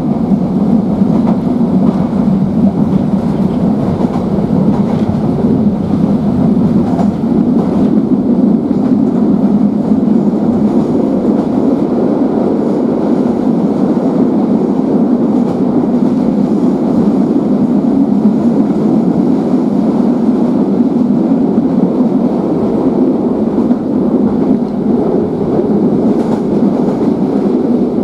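Class 483 electric train (ex-London Underground 1938 tube stock) running along the line, heard inside the carriage: a loud, steady noise of the train in motion, with wheels on the rails.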